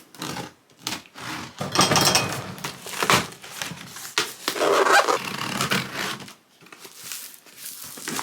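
Cardboard shipping box being opened and its contents pulled about: a series of uneven scrapes and rustles of cardboard, quieter in the last couple of seconds.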